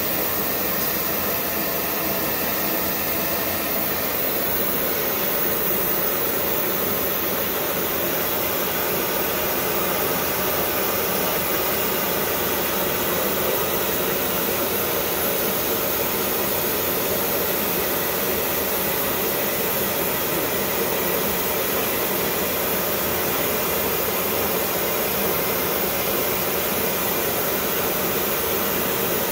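Eutectic TeroDyn 2000 oxy-acetylene flame spray torch burning and spraying powder: a continuous, even rushing hiss of the flame and gas flow.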